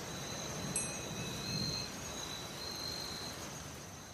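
Soft ambient background music: sustained high tones over a low hum, with one brief bright tick about a second in.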